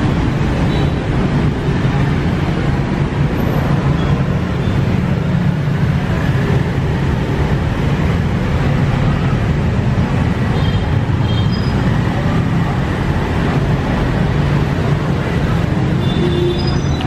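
Steady, loud background rumble with a low hum, unbroken throughout.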